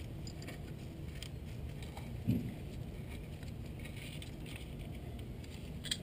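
Faint handling noises from a gloved hand turning the crankshaft and connecting rods of a Ford 5.0 Coyote V8 by hand: light clicks and one dull knock a little over two seconds in, over a steady low background rumble.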